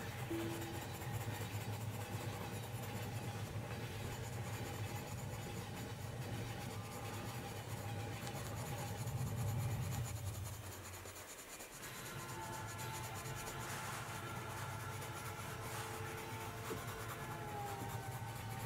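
Faber-Castell Polychromos coloured pencil scratching steadily across sketchbook paper as it shades in colour, over a steady low train rumble. The rumble fades out a little past halfway.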